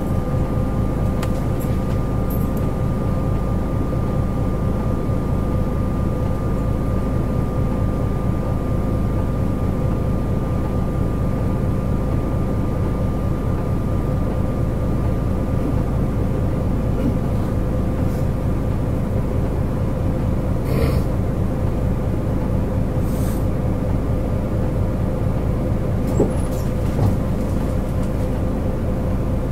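Diesel engine of a Nissan Diesel KL-JP252NAN city bus running steadily, heard from inside the cabin, with a low rumble and a steady whine. A few faint clicks and rattles come through about two-thirds of the way in.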